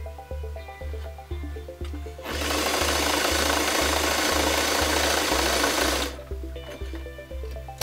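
White Model 642 domestic sewing machine running and stitching, a steady fast clatter that starts about two seconds in and stops after about four seconds. Background music with a steady beat plays throughout.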